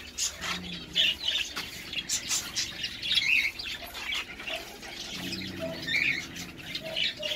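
Small birds chirping and squawking in short calls, with the lower sounds of small dogs close by.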